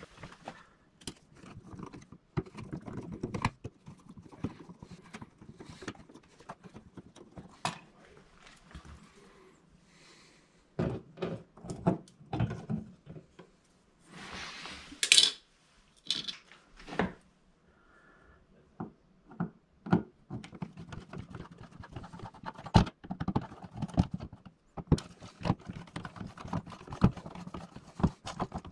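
Hand screwdriver taking out the screws of a plastic triple toggle-switch wall plate and the switches' mounting screws: scattered clicks, scrapes and taps of metal and plastic, with one louder scrape about halfway through and denser ticking near the end.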